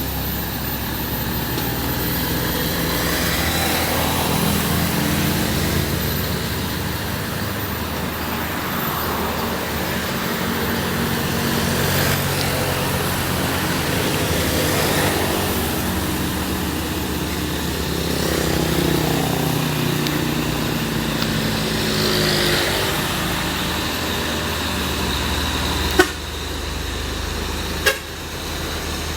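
Hill-climb traffic dominated by heavy diesel truck engines labouring, their pitch rising and falling as vehicles pass. Two sharp clicks come near the end.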